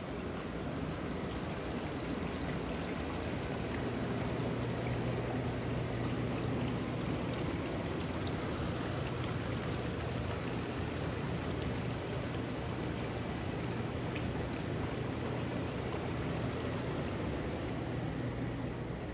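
Hot tub with its jets running: water churning and bubbling over a steady low hum.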